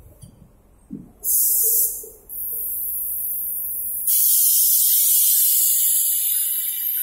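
Compressed-air paint spray gun on an automatic painting machine hissing: a short burst about a second in, then a longer steady spray from about four seconds in.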